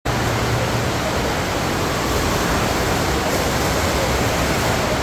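FlowRider sheet-wave machine's pumped water rushing up and over its padded surface in a steady, loud rush.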